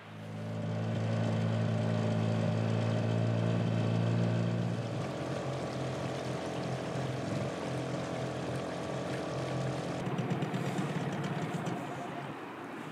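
Small outboard motor on an inflatable dinghy running steadily, a little quieter after about five seconds.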